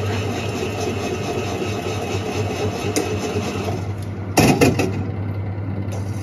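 Retro udon and soba vending machine running with a steady mechanical hum and whir while it prepares a bowl of noodles, then a loud mechanical clunk and a second knock about four and a half seconds in.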